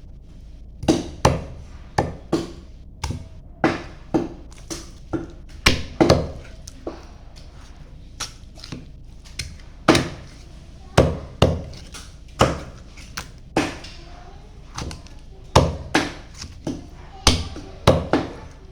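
Chicken being chopped with a knife: a run of sharp, irregular chops, some in quick pairs, with only light strikes for a couple of seconds near the middle.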